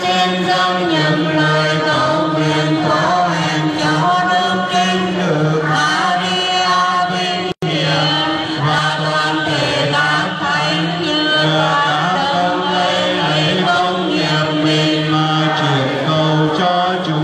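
A large crowd singing a Catholic hymn together in unison, in slow, long-held notes. The sound cuts out for an instant about seven and a half seconds in.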